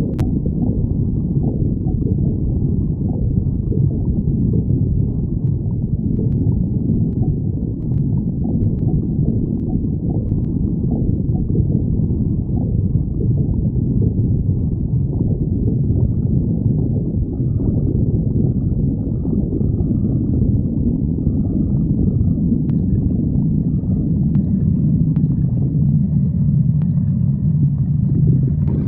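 A person's stomach growling: low, continuous rumbling that shifts unevenly.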